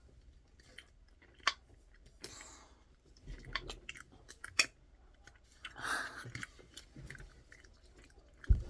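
Close-up chewing and mouth sounds of someone eating ice cream: soft smacks and scattered sharp clicks, one sharper click about a second and a half in.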